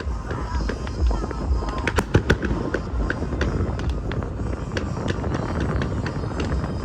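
Fireworks going off: a dense run of irregular sharp cracks and pops over a steady low rumble, with a few louder bangs about two seconds in.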